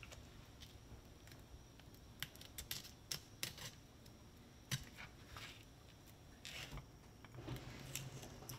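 Fillet knife slicing into a whole fish on a plastic cutting board: quiet, scattered scrapes and light clicks as the blade cuts.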